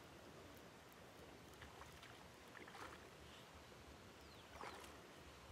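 Faint, steady hiss of light rain falling on lake water, with a few small splashes at the surface near the bank, the loudest a little under five seconds in.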